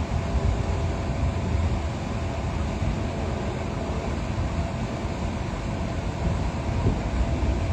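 Steady low rumble of an engine running, with faint steady tones above it and no distinct bangs.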